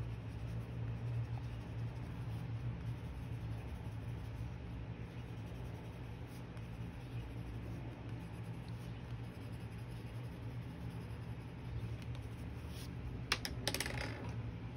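Coloured pencil scratching on paper over a steady low hum, with a few sharp clicks near the end.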